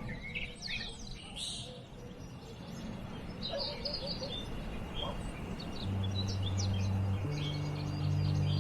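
Several songbirds chirping and twittering in a forest over a faint steady hiss. A low, steady drone comes in about six seconds in and shifts pitch a little over a second later.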